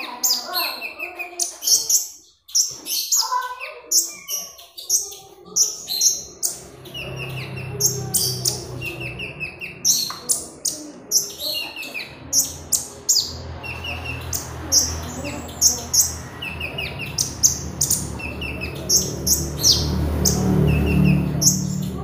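Caged kolibri ninja sunbird singing: a fast run of sharp, high chirps and short descending trills. A steady low hum comes in about seven seconds in and continues under the song.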